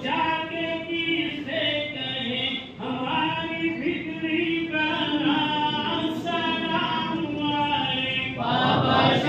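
A crowd of men chanting a devotional recitation together in long, drawn-out phrases. The phrase breaks off about three seconds in, and a louder phrase begins near the end.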